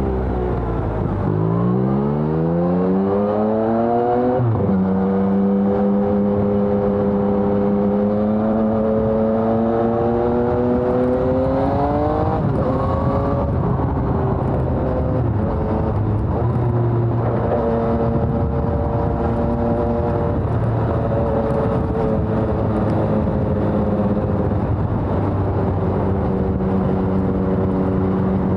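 Yamaha XSR900's three-cylinder engine through a LeoVince Evo One full exhaust system, accelerating through the gears. The revs climb quickly and drop with an upshift about four seconds in, then climb again to a second upshift about halfway through. After that the engine holds a fairly steady cruise with small changes in throttle.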